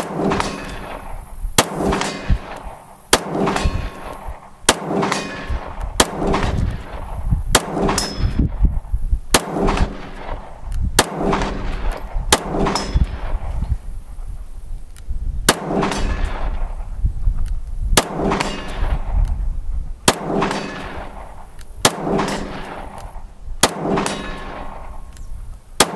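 A steady string of 9mm shots from a Smith & Wesson M&P9L CORE pistol, about one every second and a half. Most shots are followed by a steel gong ringing as it is hit.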